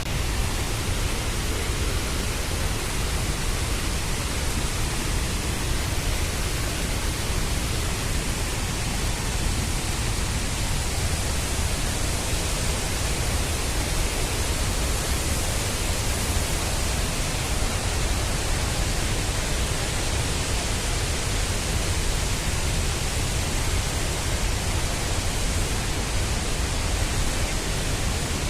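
Steady roar of a large waterfall: rushing, falling water making an even noise with no breaks.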